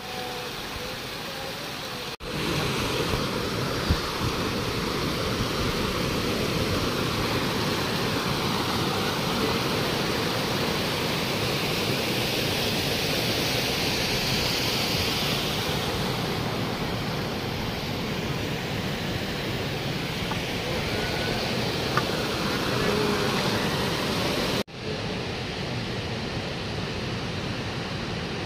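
A mountain stream splashing over rocks, then after an abrupt cut a steady rushing noise that runs for about twenty seconds, with another cut near the end to a quieter, duller rush.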